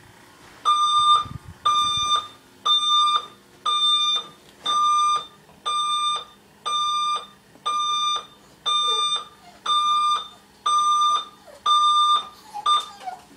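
Digital alarm clock beeping: a loud, high electronic beep repeating about every 0.6 seconds, which breaks off near the end.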